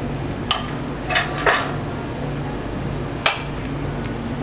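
Metal utensils clinking against dishes: four sharp clinks, two close together in the middle and one near the end, over a steady low hum.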